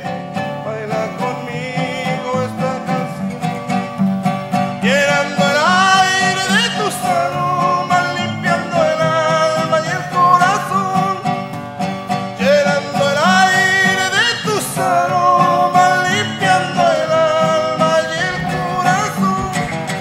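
Two acoustic guitars played together, strummed and picked chords with a gliding, wavering melody line over them.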